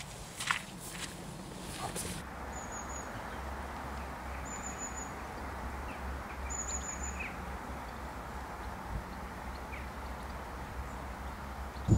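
Footsteps squelching through wet mud for about two seconds. Then steady outdoor background noise, with a small bird giving three short, high chirps about two seconds apart.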